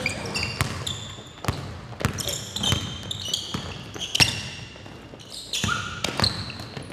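A basketball dribbled on a hardwood gym floor, bouncing irregularly, with short high sneaker squeaks as players cut and stop.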